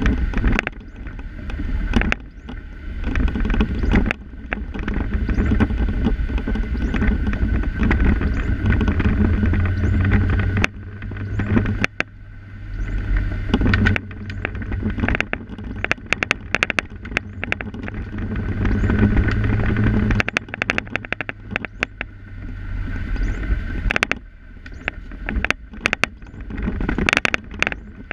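Inside a car driving on wet streets: steady low engine and road rumble, with frequent sharp rattling clicks from loose parts or fittings in the cabin.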